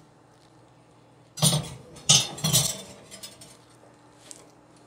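A baking dish is set onto an oven's wire rack and pushed in. About a second and a half in there is a short cluster of clinks and knocks as the dish meets the metal rack, then a few lighter ticks.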